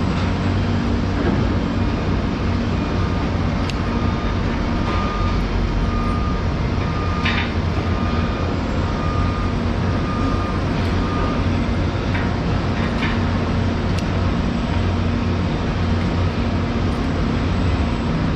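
Steady drone of running construction machinery with a strong low hum. A high beep repeats about once a second for several seconds around the middle, and a few sharp clicks stand out.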